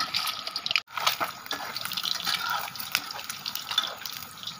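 Hot oil sizzling and crackling around boiled eggs frying in a steel kadhai. The sound cuts out briefly about a second in.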